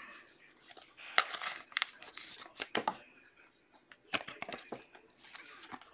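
Clear plastic card holder rustling and clicking as a football trading card is slid into it. The sound comes as short, scattered scrapes and clicks.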